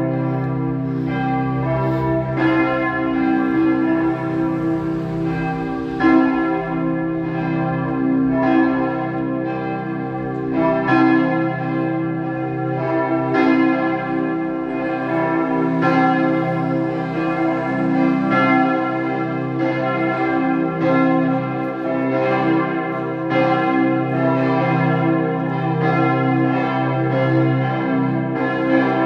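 Church bells of the Martin-Luther-Kirche in Hildesheim ringing together from the tower, fresh strikes every second or two, overlapping so that their tones hang on without a break.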